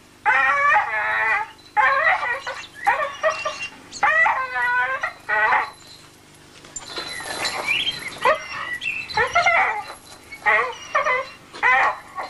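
A dog whining and yelping over and over: a string of high, wavering cries, each lasting up to about a second.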